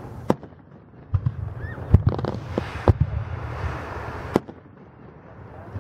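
Fireworks display: aerial shells bursting in sharp bangs. There is one bang just after the start, several in quick succession between about one and three seconds in, and another loud one a little past four seconds, then a brief lull.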